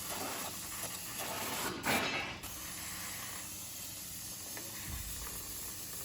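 Aerosol can of brake cleaner spraying with a steady hiss onto the exposed disc brake, with a louder blast about two seconds in.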